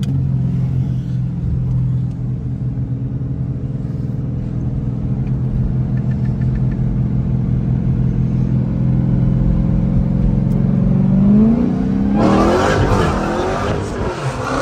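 Dodge Challenger Hellcat's V8 heard from inside the cabin, running steadily while cruising, then about eleven seconds in it revs up under hard acceleration, its pitch rising and getting louder for about three seconds before easing off near the end.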